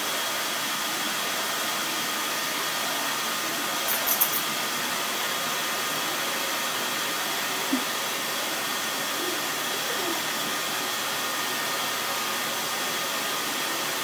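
Vacuum cleaner running steadily while a dog's coat is vacuumed. A quick cluster of clicks comes about four seconds in, and one more click near eight seconds.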